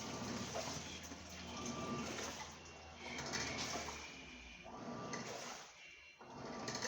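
Water swishing and churning in a top-loading washing machine's tub, swelling and easing every couple of seconds.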